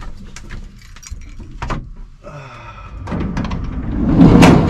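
A GMC Safari van's sliding side door being unlatched and rolled open: a rumbling clatter that builds from about three seconds in and is loudest near the end. A few light clicks and knocks come before it.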